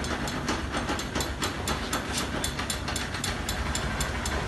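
Engine running with a fast, even ticking, about five or six ticks a second, over a low rumble: the abnormal engine noise being hunted down.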